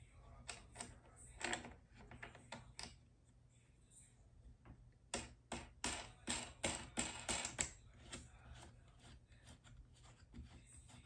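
Sharp clicks and light knocks as parts of a Crayola kids' mini wooden art easel are fitted together by hand. A small green plastic fitting is being worked onto a wooden rail. A few scattered clicks come first, then a quick run of about nine sharper clicks over two and a half seconds in the middle.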